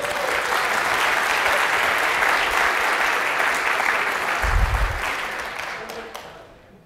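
Audience applauding, swelling in at once and fading out over the last second or two. A short low thump sounds about four and a half seconds in.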